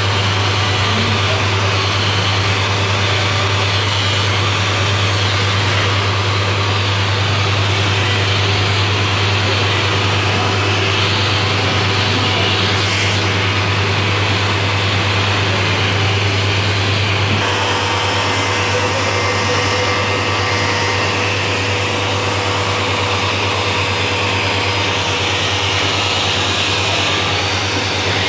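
Suction thread-cutting machine running steadily as its hose nozzle is drawn over fabric to suck in and trim loose thread ends. It makes a vacuum-cleaner-like rush of air over a strong low motor drone. About two-thirds through, a faint steady higher hum joins in.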